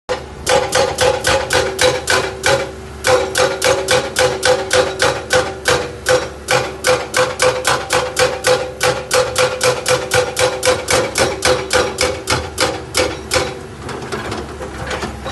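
Hydraulic rock breaker on a Hyundai excavator hammering rock: a rapid, even run of ringing blows, about five a second. There is a short pause about two and a half seconds in, and the blows stop a couple of seconds before the end.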